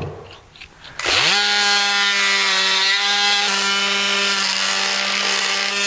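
Surgical oscillating bone saw starting up about a second in, quickly winding up to a steady high buzz, and cutting bone through a slotted cutting block for a resection cut; it stops near the end.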